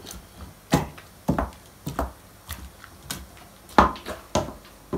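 Wooden meat pounder mashing cooked meat, chickpeas and potato in a stainless steel pot to make gusht-kubideh: a run of irregular soft, wet thuds, about two a second.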